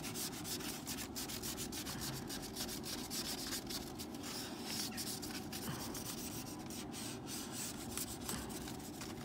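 Frost and ice being scraped off a frozen car's window: a steady run of quick, short scraping strokes.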